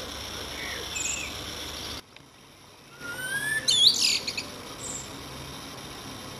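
Common blackbird singing: a few soft whistled notes, then about three seconds in a loud phrase of a rising whistle breaking into a fast, high twittering trill.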